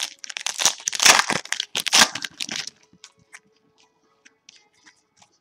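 Trading-card pack wrapper crackling as it is handled, a dense crackle for about the first two and a half seconds. After that come a few faint soft clicks as the stack of hockey cards is handled.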